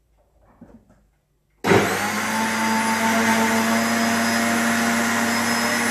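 High-speed countertop blender switched on about a second and a half in after a few faint knocks from the lid being seated: the motor comes up to speed at once and runs with a steady loud whir and whine, blending greens, fruit and too little water into a thick green smoothie.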